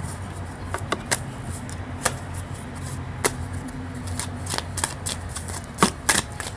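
A deck of tarot cards being shuffled by hand: a scatter of quick snaps and flicks of the cards, a few sharper ones near the end, over a low steady hum.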